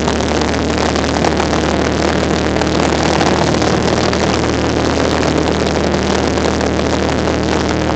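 Cessna 172's piston engine and propeller running at takeoff power during the takeoff roll, heard inside the cabin as a loud, steady drone.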